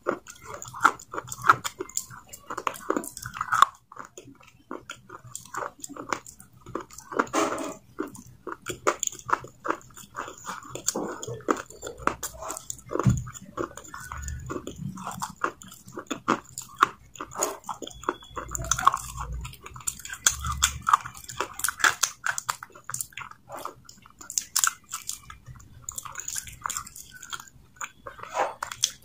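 Close-miked crunching and chewing of crumbly grey clay: dense, irregular crisp cracks as the pieces are bitten and ground in the mouth, with a few dull low thuds midway.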